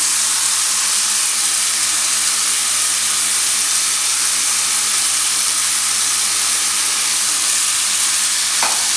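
Soaked basmati rice frying in hot oil in a kadai, a steady loud sizzle.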